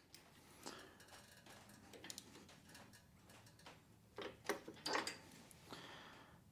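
Faint, irregular clicks and knocks of a hand tool tightening a new spark plug into the Kohler 7000 engine, with a few louder clicks about four and a half to five seconds in.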